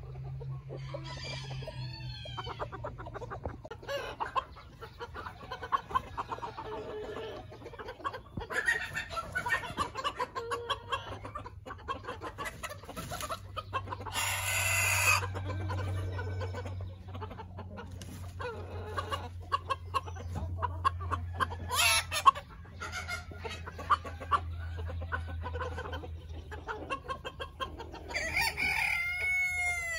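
Backyard chicken flock clucking and calling in many short calls, with a louder, noisier stretch about halfway through and a steady low hum underneath.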